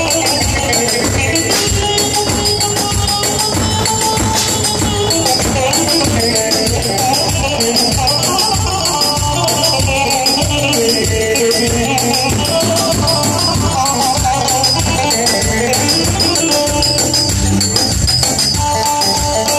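Live Turkish folk dance music (an oyun havası) led by an electronic keyboard, with a fast, steady beat and rattling percussion under the melody.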